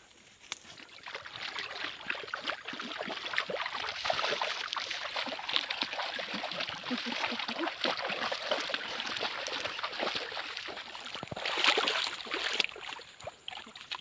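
Bare feet wading through shallow, muddy stream water: a run of sloshing, splashing steps, with the loudest splashes near the end.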